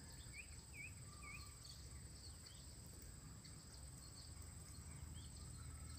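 Faint rural ambience: a steady high-pitched insect drone throughout, with three short chirps from a bird in the first second and a half.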